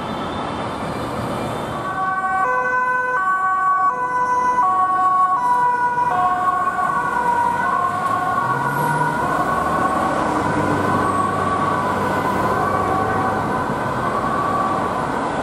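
Ambulance two-tone siren sounding, starting about two seconds in and stepping back and forth between two pitches, over the steady noise of passing road traffic.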